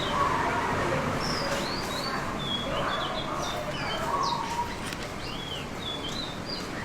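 Birds chirping: many short, high chirps, some rising and some falling, in quick succession over a steady background noise.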